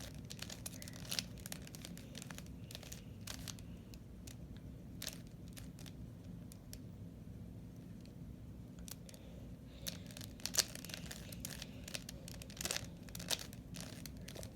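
Plastic 3x3 Rubik's Cube being turned by hand: irregular clicks and scrapes of the layers as they twist, coming in quicker runs near the end, over a low steady room hum.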